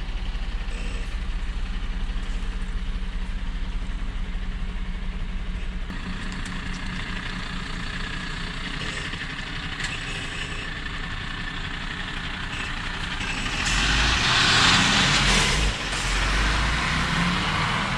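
Vehicle engine running steadily at idle. About fourteen seconds in, a louder rushing hiss swells for a couple of seconds, then eases.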